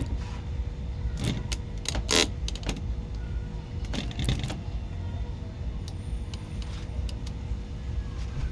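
A car engine running steadily with a thin constant whine, and a few sharp metallic clinks, a cluster about a second in and another about four seconds in.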